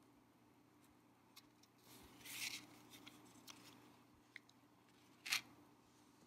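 Faint crackling of a burning candle: scattered small clicks, a short hissy crackle about two seconds in, and a sharper pop about five seconds in.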